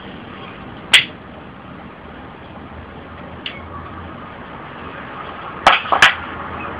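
Steady hiss with four sharp clicks or knocks over it: a loud one about a second in, a faint one midway, and two loud ones close together near the end.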